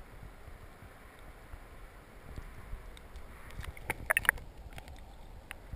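Muffled moving river water heard underwater through a GoPro's waterproof housing, a low rushing haze. A short cluster of sharp clicks and knocks comes a little past the middle.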